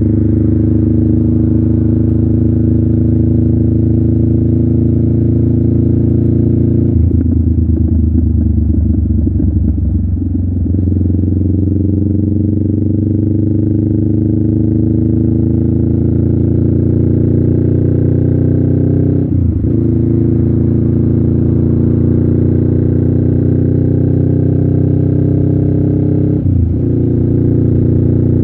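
Honda Rebel 500's parallel-twin engine through a Vance & Hines aftermarket muffler, running under way with a rough, uneven patch and then pulling up through the gears: the exhaust note climbs steadily in pitch, drops suddenly at an upshift about 19 seconds in, and climbs again to another shift near the end.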